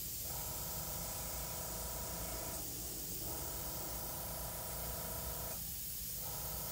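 Airbrush spraying with a steady hiss of air and paint, held farther off the paper for soft shading. A faint hum under the hiss drops out briefly three times, about three seconds apart.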